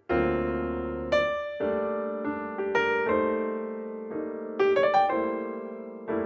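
Background music: a slow solo piano piece, chords and single notes struck and left to ring and fade.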